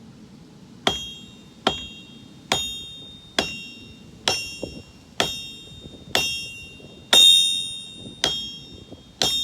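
Hand hammer striking a sword blade on an anvil, about ten blows at a steady pace of just over one a second. Each blow rings out with a clear, bell-like metallic tone that fades between strikes, and one blow near the end is louder and rings longer.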